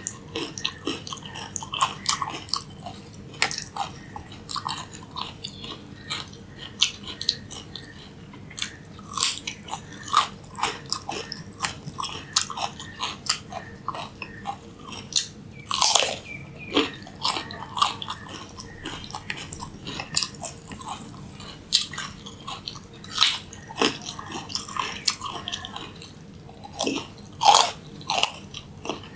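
Raw carrot being bitten and chewed: a long run of irregular sharp crunches with chewing between them.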